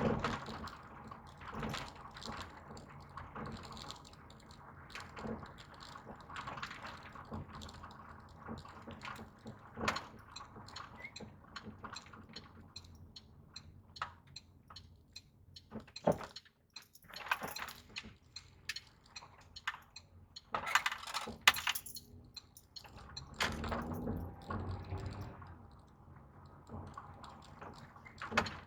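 A car being driven over rough ground, with irregular knocking, a 'tac, tac, tac', from the front end. The mechanic puts this down to worn engine and gearbox mounts, which leave the engine-transmission assembly almost loose in the car.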